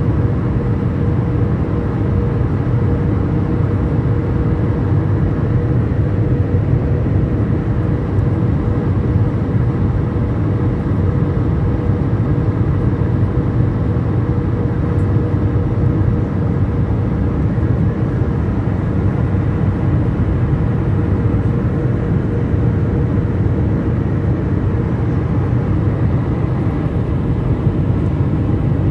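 Jet airliner cabin noise on descent, heard at a window seat: a steady low rumble of the engines and rushing air, with a faint steady hum above it.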